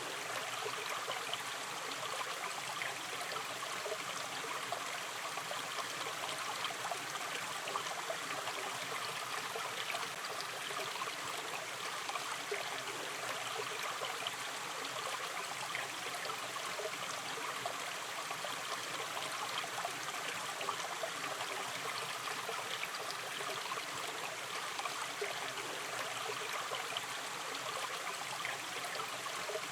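Shallow river stream running gently, a steady bubbling and trickling of water over stones, with no pauses.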